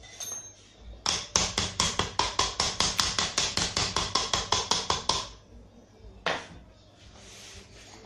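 Hand-pump oil can squirting oil onto the engine: a fast, even run of sharp metallic clicks, about six a second for some four seconds, then one more click a second later.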